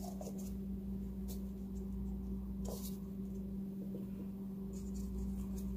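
A steady low hum with a few faint short clicks.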